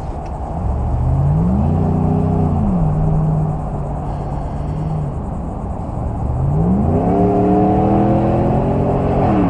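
Motor vehicle engine accelerating over a steady traffic rumble: twice the engine note climbs, holds for a while, then drops.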